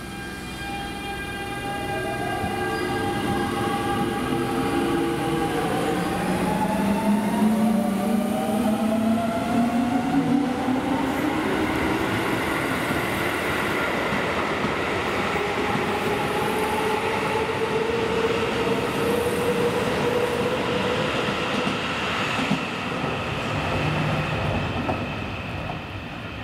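Keio 8000-series electric train pulling away, its traction motors and inverter whining in several tones that climb steadily in pitch as it gathers speed, then running on with steady motor and wheel noise. Near the end a second whine starts to rise.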